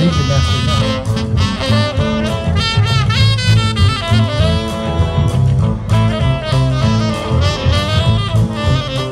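Live blues band playing: saxophone with electric guitars, bass and drum kit, amplified through PA speakers, over a steady driving beat.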